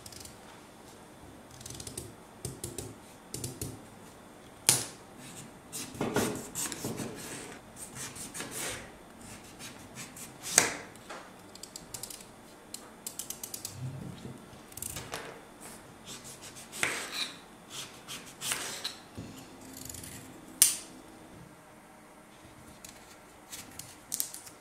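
A small kitchen knife pares the hard rind off a slice of pumpkin in irregular crunching, scraping cuts, with a few sharp clicks among them.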